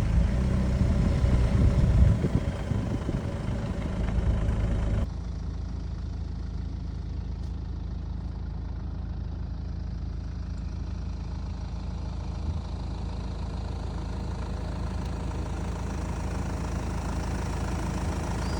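An off-road 4x4's engine running loud and uneven for about five seconds. The sound then cuts suddenly to a steadier, quieter engine hum at idle.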